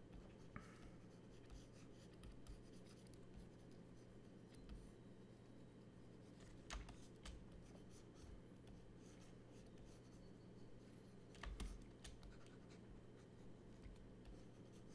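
Faint scratching of a stylus sketching on a graphics tablet, with a few soft clicks and a steady low hum underneath.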